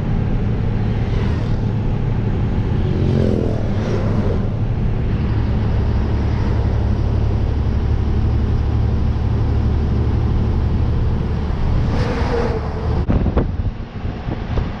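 Truck engine droning steadily, heard from inside the cab while driving on the highway, with a few brief swells as vehicles pass. Near the end the sound changes to gusty wind noise on the microphone.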